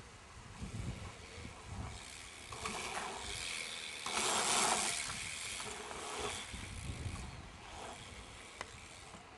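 BMX bike riding on dirt trails: a rushing hiss of tyres and air, loudest about four to five seconds in, over low uneven thumps.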